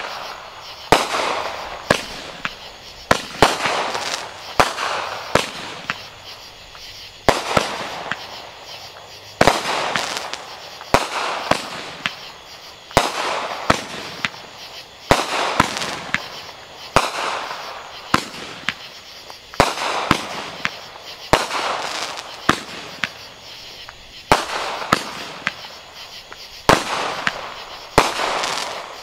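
A Legend Fireworks UFO Missions 500-gram cake firing shot after shot: a sharp bang about every two seconds, each followed by a hiss that trails off over a second or two.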